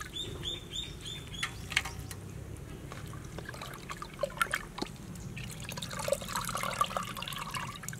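Water dripping and splashing back into a clay pot as handfuls of small fish are squeezed and rinsed by hand, with scattered small drips and splashes. A bird chirps a quick run of short high notes in the first second or so.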